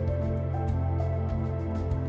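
Background music: sustained notes held over a steady, pulsing low bass.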